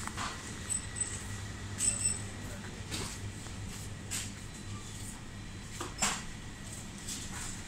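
Small-shop background: a steady low hum with scattered short clicks and a few light clinks.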